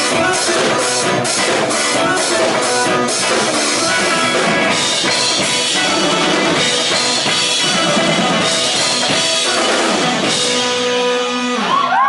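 Live rock band playing the last bars of a song: drum kit, electric bass and guitars with a steady drum beat, settling into a held final chord near the end, as the audience starts cheering and screaming just at the close.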